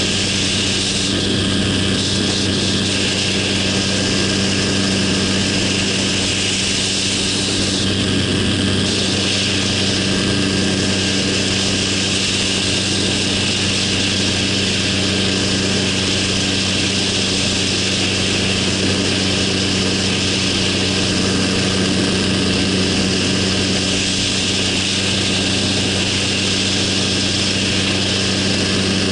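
Minitrike's small engine and pusher propeller running steadily at cruise power in flight, an even drone with a constant pitch. A steady rush of air over the wing-mounted microphone runs under it.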